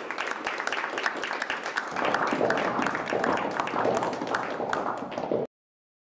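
Audience applauding, quick irregular claps, with voices talking over the clapping from about two seconds in; the sound cuts off abruptly near the end.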